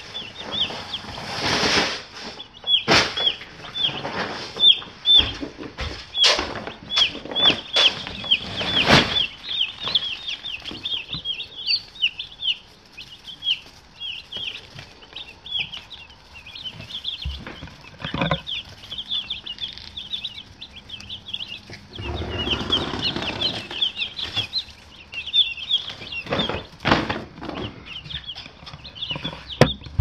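A brood of day-old broiler chicks peeping, many short high falling chirps in quick succession, thinning out in the middle and picking up again later. Scattered knocks and a stretch of rustling come through along with the peeping.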